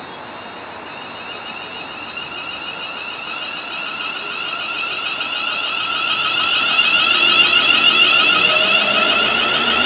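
London Midland Class 350 Desiro electric multiple unit moving along the platform. Its traction motors give a high whine in several steady tones, growing louder as the train comes close.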